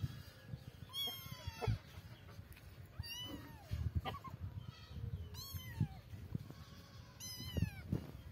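Calico kitten meowing four times, about two seconds apart, each a high call falling in pitch, with scattered short knocks between the calls.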